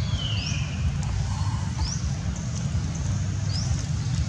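A steady low rumble under a bird's short, high rising chirps, repeated about every second and a half, with one long falling whistle right at the start.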